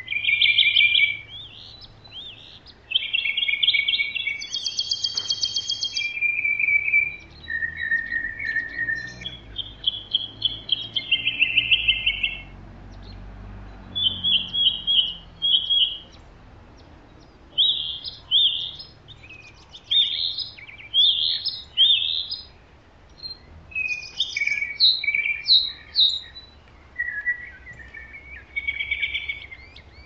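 Songbirds singing: a run of short chirped and warbled phrases, one every second or so, with a few buzzy notes among them.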